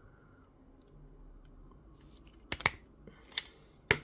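A stapler being squeezed to clamp a thin shim together: a few sharp clicks in the second half, two close together, then two more spaced apart.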